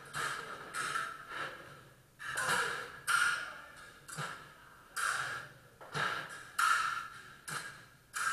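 Sabre fencing drill: about nine short, sharp sounds at irregular intervals, each dying away within half a second.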